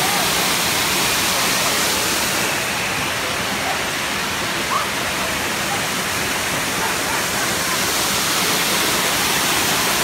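Small waterfall pouring into a rock plunge pool: a steady rushing of falling water.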